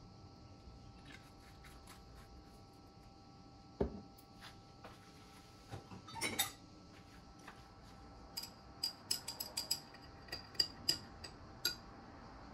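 A green glass straw stirring a drink in a glass tumbler, clinking sharply against the side about a dozen times over three seconds in the second half. Earlier there is a single knock, then a short clatter, as a small glass syrup bottle is handled and set down on the wooden counter.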